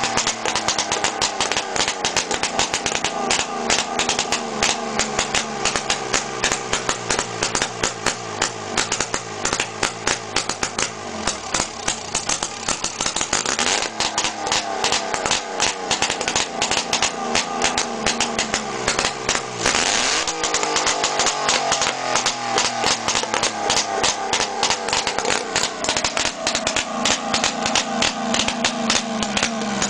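Motorcycle engine running with a rapid, even firing beat. Its pitch shifts up and down around halfway through and again about two-thirds of the way in, as the revs change.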